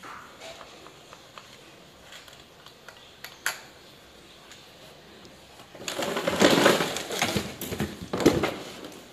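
Clear plastic packaging crinkling and rustling as it is handled, loudest for about two seconds from six seconds in, with a shorter burst just after. Before that, a few light clicks and one sharper click of the plastic transmitter and box being handled.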